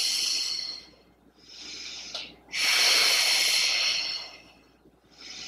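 A woman breathing hard and audibly through a Pilates exercise. Twice a short, quieter inhale is followed by a long, louder, breathy exhale, each exhale timed to an arm reach against a resistance band.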